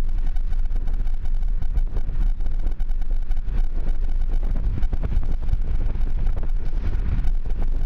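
Moving car heard from inside the cabin: a steady low road and engine rumble with a rushing noise over it.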